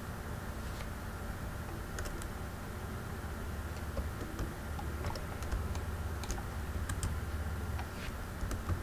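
Irregular, scattered clicks of computer keyboard keys, a few a second in small clusters, over a low steady hum.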